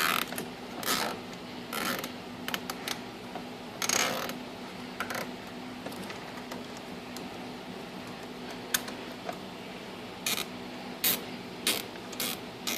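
Nylon zip ties ratcheting in short scattered clicks and brief zips as they are pulled snug around a rubber vent hose, over a faint steady hum.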